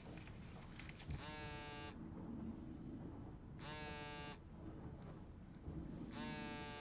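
Mobile phone buzzing in three identical pulses, each a bit under a second long and about two and a half seconds apart: an incoming call.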